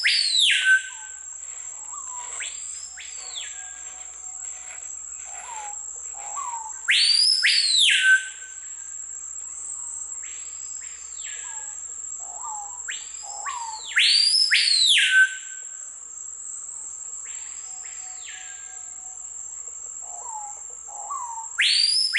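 Screaming piha calling in answer to a played-back recording of its call: loud whistled notes that swoop up and then fall, about every seven seconds, with fainter calls of the same shape in between. A steady high insect drone runs underneath.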